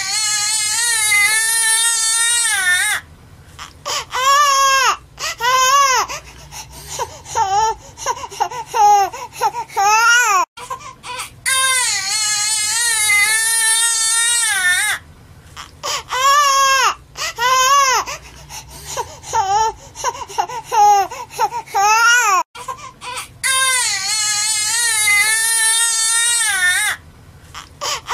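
Newborn baby crying: high-pitched wails, long held cries of a few seconds alternating with short choppy sobs. The same stretch of crying repeats about every eleven and a half seconds, as a loop.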